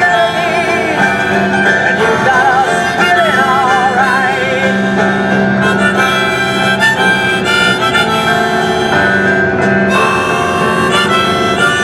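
Music: a wavering, vibrato-laden lead melody over a steady sustained accompaniment.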